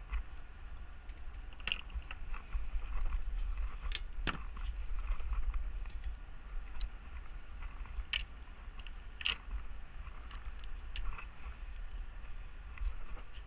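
Scattered metallic clicks and taps of hand tools and bolts being handled, a dozen or so at irregular intervals, over a steady low rumble.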